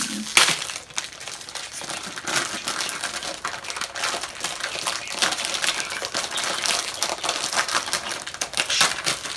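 Cardboard Mystery Wand box being torn and pried open by hand: a dense, irregular run of crinkles, rustles and small clicks, with a sharper snap about half a second in.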